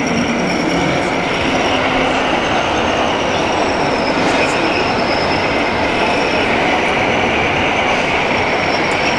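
Steady high whine of a radio-controlled model tractor's drive and gears while it pulls a box-blade leveller through loose soil, over a constant noisy din.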